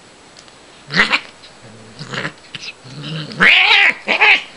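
Siamese cat vocalizing during play with a feather toy: a few short calls after about a second, then a longer, louder call about three and a half seconds in that rises and falls in pitch.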